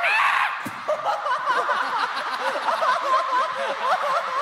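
Several people laughing at once, many voices overlapping, with a brief louder burst at the very start.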